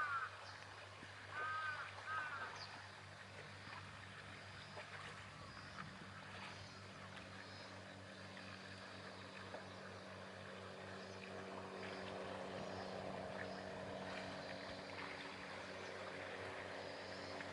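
A steady low engine hum that grows a little louder from about ten seconds in, over faint lapping harbour water. A bird calls twice about two seconds in.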